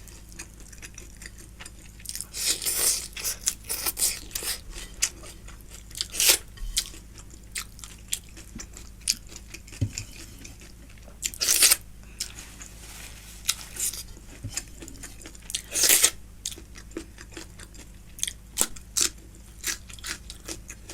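Close-miked chewing of food: a steady run of small wet mouth clicks, broken by several louder crunchy bites.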